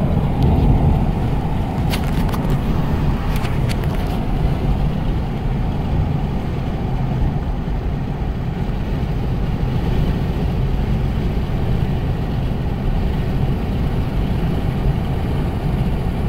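Steady road noise inside a moving car: a low, even rumble of tyres and engine. A few light clicks come about two to four seconds in.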